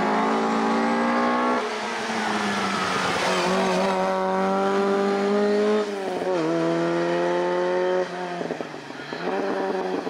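Ford Escort Mk1 RS2000 race car's engine at full throttle, climbing in pitch as it accelerates and dropping back at each upshift, about a second and a half in, around six seconds and again at about eight seconds.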